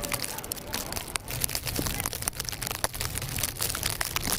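Snow crunching and scraping under sleds and boots: a run of short crackles over a low rumble, with faint distant voices.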